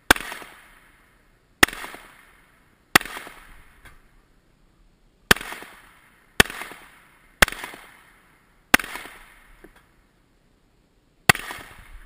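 Pistol shots fired one at a time at targets, eight of them, spaced about one to two and a half seconds apart, each sharp report trailing off in an echo.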